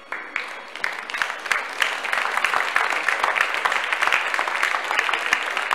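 Audience applauding, growing over the first couple of seconds and then holding steady.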